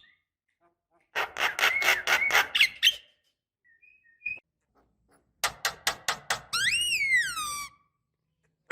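Javan myna calling: a two-second run of rapid harsh notes, a few faint chirps, then another quick series ending in a long whistled note that rises and then falls.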